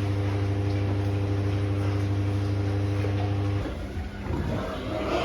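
A steady mechanical hum, one low pitch with several higher tones over it, that cuts off suddenly about three and a half seconds in, leaving a rougher, irregular noise.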